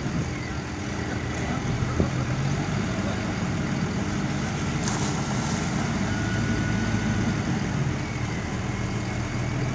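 Diesel engine of a CVS Ferrari reach stacker running steadily, with a single sharp click about five seconds in.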